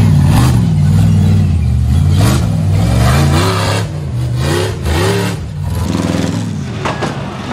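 Rock bouncer buggy engine revving hard in repeated surges, its pitch climbing and dropping as the buggy claws up a steep rock face, with a few sharp knocks in between.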